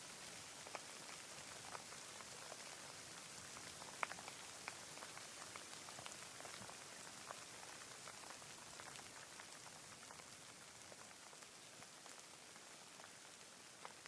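Faint rain falling: a steady soft hiss with scattered individual drops ticking, one louder drop about four seconds in.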